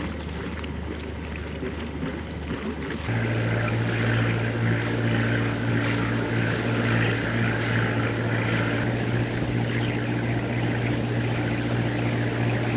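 A sailboat's inboard engine running steadily, over a hiss of wind and water. About three seconds in it gets louder and its hum steps up in pitch, as when the throttle is opened.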